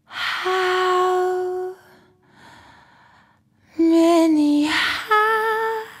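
Woman singing three breathy, sustained notes: a steady held note, then one that falls in pitch, then one with vibrato. Quiet breaths come between the phrases.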